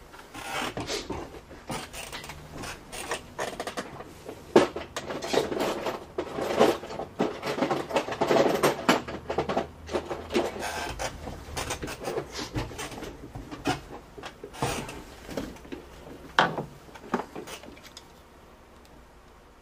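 Hands rummaging among hand tools: irregular rubbing, scraping and clattering, with a sharper knock about sixteen seconds in, then quieter toward the end.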